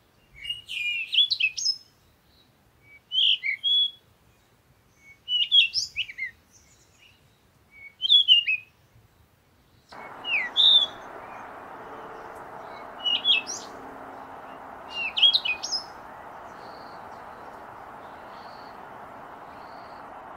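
Small songbird chirping in short high phrases, a burst about every two seconds. About halfway through, a steady hiss of outdoor background noise starts under the chirps and carries on after they stop.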